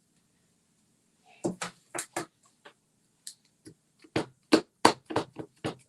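Irregular run of short, sharp taps and clicks from paper pieces being handled and pressed down onto a card on a desk, starting about a second in and loudest about four to five seconds in.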